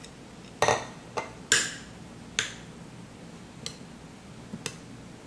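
A metal spoon clinking against a ceramic bowl while stirring into tomato sauce: about six sharp clinks at uneven intervals, the loudest in the first two and a half seconds.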